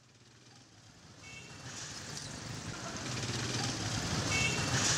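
Street traffic fading in: vehicle engines running, with a short high beeping twice, about three seconds apart.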